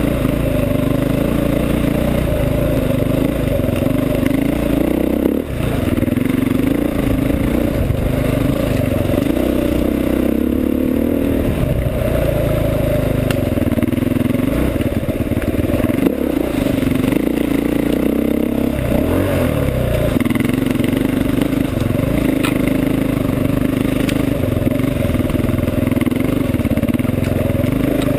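Enduro motorcycle engine heard from onboard, running and revving up and down again and again as the bike rides an off-road trail, with a brief drop in engine speed about five seconds in.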